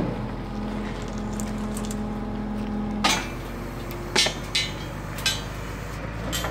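Truck-mounted hydraulic crane running with a steady hum and held whine that cuts off with a sharp metallic clank about three seconds in. Several more sharp metallic clanks and knocks follow as the crane lifts the wrecked car hanging in its slings.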